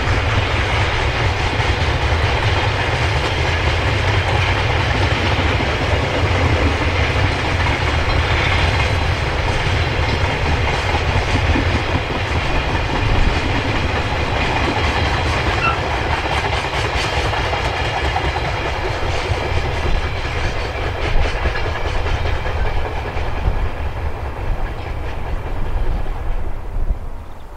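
Container freight train of Koki flatcars rolling past slowly, a steady rumble of wheels on rail with scattered clicks and clacks. It drops away abruptly near the end as the last wagon goes by.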